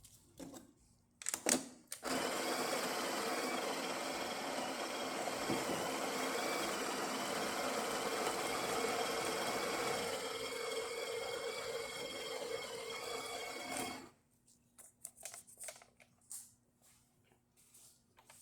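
Breville Barista espresso machine running steadily for about twelve seconds after a sharp click, its tone shifting lower about ten seconds in, then cutting off suddenly, followed by a few light clicks.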